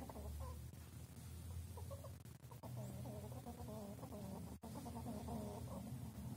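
Fox squirrel calling: quick runs of short, repeated calls, a brief run at the start and a longer one from about two and a half seconds in, heard through window glass.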